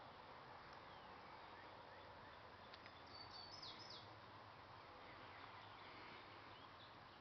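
Faint outdoor ambience: a steady low hiss with faint bird chirps, including a short cluster of high chirps about three seconds in.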